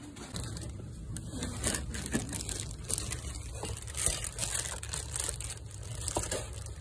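Clear plastic packaging crinkling and rustling as it is handled, in irregular crackles.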